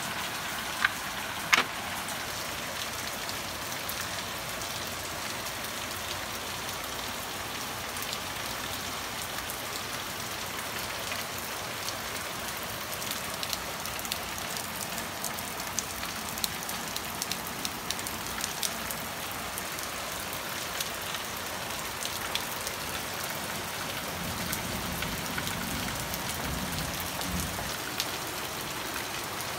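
Rain falling steadily, with two sharp taps about a second in and a low rumble near the end.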